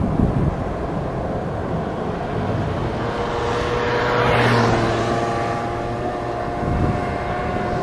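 Jet airliner passing close by, its engine whine dropping in pitch as it goes past about halfway through, over a steady rumble.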